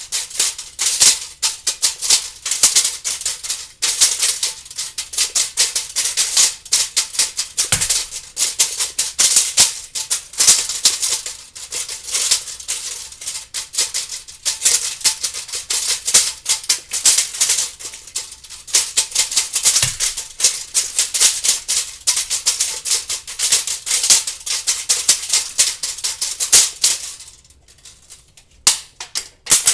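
Steel tape measure being worked: a dense run of rapid clicking from the blade and its housing, with two soft low knocks and a short lull near the end before the clicking starts again.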